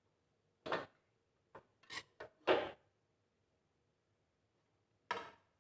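A handful of short scrapes and knocks of cookware being handled, the loudest about two and a half seconds in and another near the end, with quiet gaps between.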